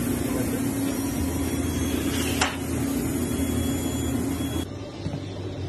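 Conveyor pizza oven running: a steady blower rush with a low hum. A brief sharp sound comes about two and a half seconds in, and the noise cuts off suddenly a little before the end.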